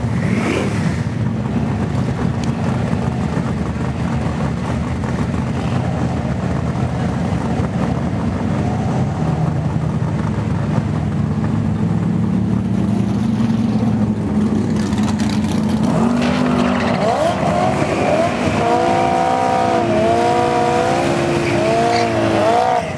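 A C5 Corvette's V8 runs at low revs for the first dozen seconds, its drone slowly rising in pitch. From about 16 s it does a burnout: the engine revs high with a wavering, bending pitch over screeching rear tyres spinning in the smoke.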